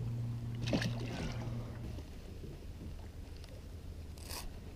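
A steady low electric hum from the bass boat stops about two seconds in, over faint wind and water noise. A brief knock comes about a second in, and a short hissy burst near the end.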